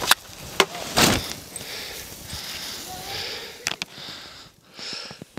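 Skis sliding through powder snow, heard from a helmet camera: a hiss that comes and goes, with a few sharp knocks from bumps in the snow.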